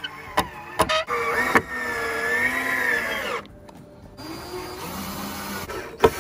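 Cordless drill driving screws into wood: a run of motor whir whose pitch wavers with the trigger, then a second, lower run that rises in pitch. A few sharp clicks come near the start and the end.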